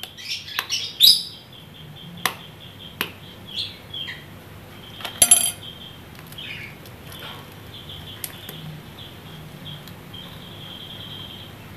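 A metal spoon tapping and cracking a hen's eggshell: a few sharp clicks over the first five or six seconds, the loudest about five seconds in. Small birds chirp in short rising and falling calls throughout.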